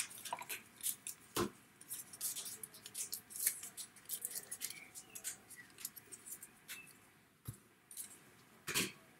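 Pre-cut cardstock rose and leaves being pushed out of their die-cut sheet: light paper rustling and crackling, with a few sharp taps.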